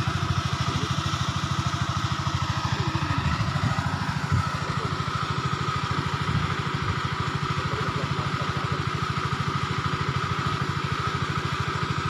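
A small engine running steadily at idle, with an even, rapid pulse.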